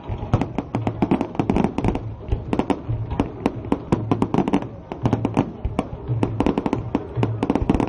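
Fireworks going off in rapid, overlapping succession: a dense run of sharp bangs and pops, several a second, with a low note repeating at a steady pace underneath.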